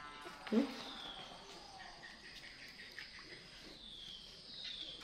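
Faint animal sounds: several short, high chirps, each falling in pitch, over a steady thin insect-like hum. There is one brief, louder low vocal sound about half a second in.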